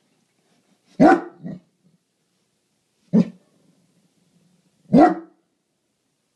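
Great Dane giving deep alert barks: a bark with a smaller one right after it about a second in, a short single bark around three seconds, and another bark near five seconds, with silence between.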